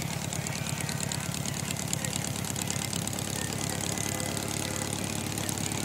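Air-cooled Volkswagen flat-four engine of a home-built VW trike idling steadily, with an even rapid pulse.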